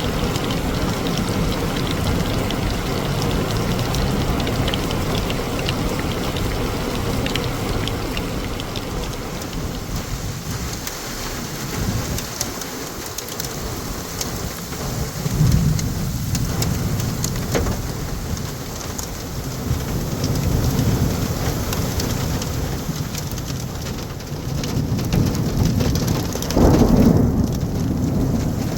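Heavy rain falling steadily, with drops pattering throughout. Low rumbles of thunder rise about halfway through, and a louder one comes near the end.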